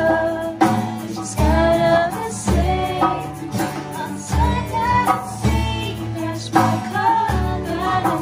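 Women singing a pop song, accompanied by two strummed acoustic guitars and a hand drum whose deep strikes land about once a second.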